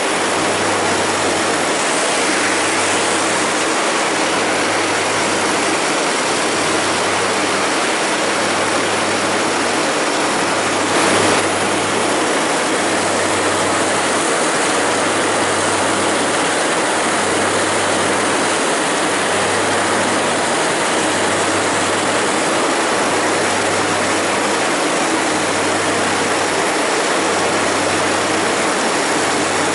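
Heavy farm machinery running steadily during corn silage harvest, with a low throb repeating about every two seconds. A brief louder knock about eleven seconds in.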